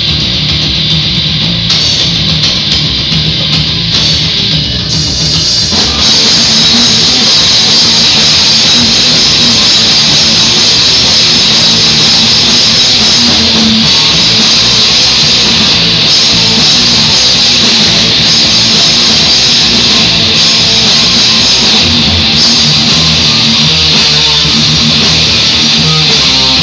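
Live rock band playing electric guitars, bass and drum kit through a PA. A quieter passage carried by the low end opens up about six seconds in, when the full band comes in loud and stays steady.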